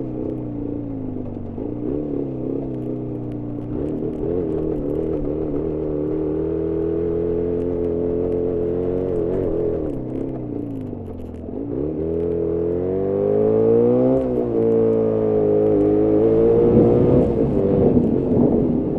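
Jawa 350 two-stroke twin motorcycle engine heard onboard under way, its pitch rising and falling with the throttle: it sags low past the middle, climbs steeply, then drops sharply. A rougher clatter joins the engine near the end. The owner says the engine is running very lean and will not idle without constant throttle.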